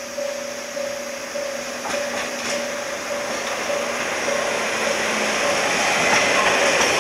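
A repeating two-tone ding of a railway level-crossing bell, just under twice a second, with the noise of an approaching train hauled by two DE10 diesel-hydraulic locomotives growing steadily louder until it drowns the bell near the end.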